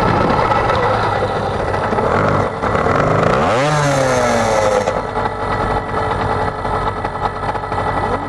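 Small motocross bike engine running, revved once about three and a half seconds in, its pitch rising quickly and then sliding back down to a steady idle.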